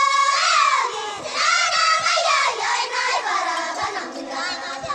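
Several high voices singing together, their melodic lines gliding up and down and overlapping, with no clear beat.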